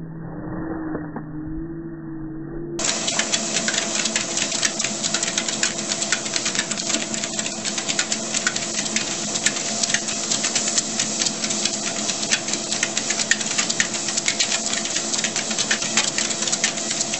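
ProForm treadmill running with two corgis walking on its belt: a steady motor whine with dense, fast ticking, starting suddenly about three seconds in. Before that, a low wavering hum.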